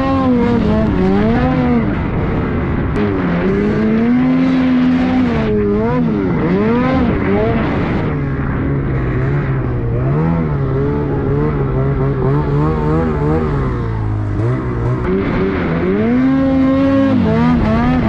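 Snowmobile engine revving up and down as the sled ploughs through deep powder, its pitch swooping with the throttle. It holds a steadier pitch for a few seconds past the middle, then climbs again near the end.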